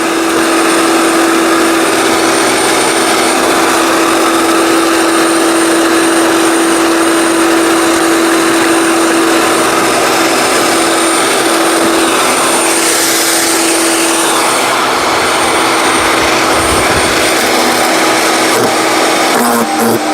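15-amp electric wood chipper shredder running, a steady motor whine over a loud, even rush of noise, with a brief brighter hiss about two-thirds of the way through.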